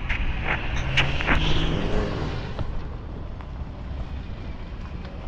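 Vehicle driving slowly, engine and tyre noise heard from inside the cab, with a few knocks and rattles in the first couple of seconds; the sound grows quieter partway through.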